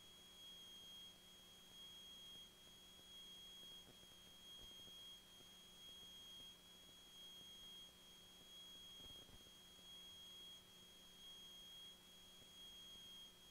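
Near silence: only a faint steady high-pitched tone, with a fainter low hum beneath it.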